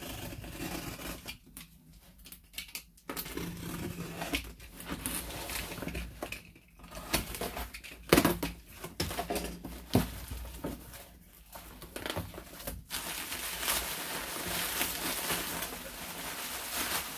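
Snap-off utility knife slitting packing tape on a cardboard box, with scraping and a few sharp knocks as the box is handled. In the last few seconds it gives way to a steady crinkling of plastic bubble wrap being pulled out of the box.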